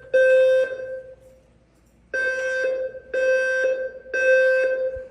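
Fire alarm voice-evacuation system sounding its evacuation tone in the temporal-three pattern: one half-second low-pitched beep ends a group, then after a pause of about a second and a half come three more beeps a second apart. It is a fire alarm test.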